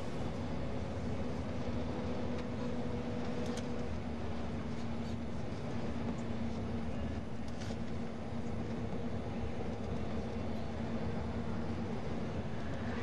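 Steady engine drone and road noise of a moving vehicle heard from inside, with an even low hum and a few faint clicks.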